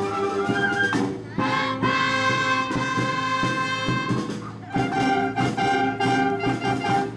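School wind band playing, brass to the fore over drum beats, in held chords that break off briefly about a second in and again just past the middle.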